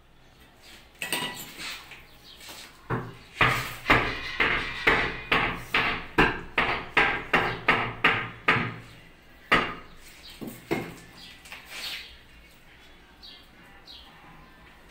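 Hammer blows on the old kitchen counter's masonry during demolition: a steady run of about a dozen blows, two to three a second, with a few single blows before and after and quieter knocks near the end.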